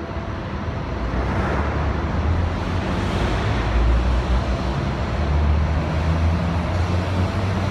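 A train running past with a low rumble and a rush of air, growing louder over the first few seconds and then holding steady.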